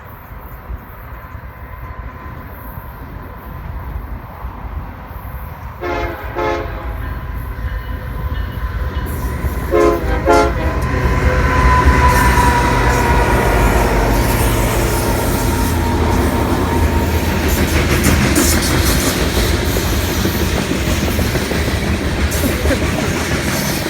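Approaching diesel freight train led by a GE ES44AC locomotive, sounding two pairs of short horn blasts about six and ten seconds in. The low rumble of the diesel units and rolling wheels then builds and stays loud as the locomotives pass at track speed.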